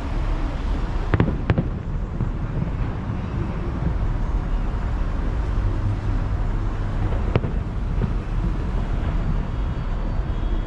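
Distant fireworks going off: two sharp cracks close together about a second in and another near seven seconds, over a continuous low rumble.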